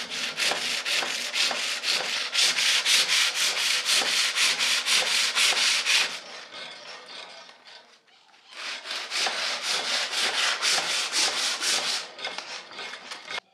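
Sandpaper rubbing over a turned wooden table leg in quick, regular strokes of about four a second. It pauses for a couple of seconds near the middle, then starts again.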